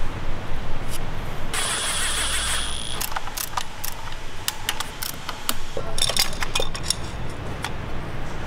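Clicks and knocks of hand tools and hard plastic and metal parts as a new rocker (valve) cover and its fittings are put onto a BMW B58 straight-six engine, with a brief high whir lasting about a second and a half near the start.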